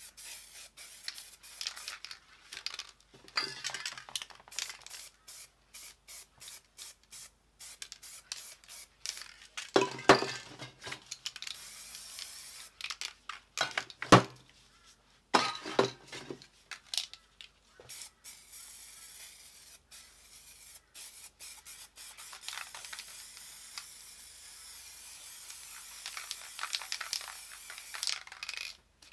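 Aerosol spray paint can hissing in many short bursts as paint is sprayed onto paper. A few louder knocks and clinks come about ten and fourteen seconds in.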